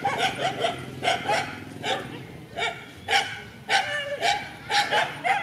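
Dogs fighting: a rapid run of short, sharp barks and yelps, about three a second.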